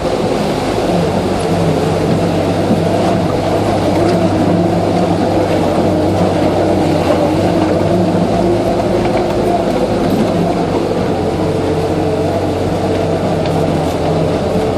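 Land Rover Series 3 engine running steadily while driving, a constant drone with even pitch and no revving.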